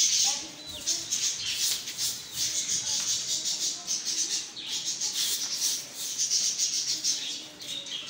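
Bajra (pearl millet) grain rattling as it is shaken in a metal sieve: a run of repeated hissing, shaker-like strokes.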